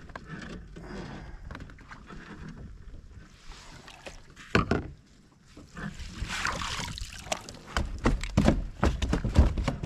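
A bass being netted beside a kayak and lifted aboard: water sloshing and splashing, with sharp knocks of the landing net and tackle against the kayak, one about halfway through and several loud ones near the end.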